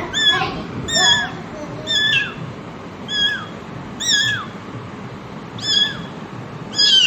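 A kitten mewing over and over: about seven short, high mews, roughly one a second, each falling in pitch at the end.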